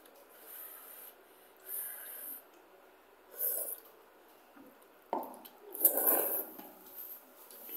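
Instant curry noodles being slurped up from chopsticks, four slurps, the last one, about five seconds in, the longest and loudest.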